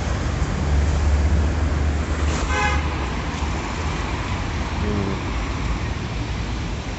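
Street traffic rumbling steadily, with a short car horn toot about two and a half seconds in.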